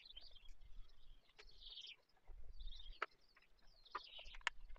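Faint birdsong, short chirping phrases on and off, with a few sharp clicks from a hand tool working at the motorcycle's battery terminals.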